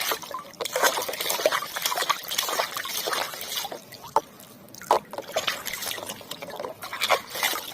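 Water splashing, trickling and dripping irregularly as a muddy toy is washed by hand, with a couple of sharper clicks around the middle.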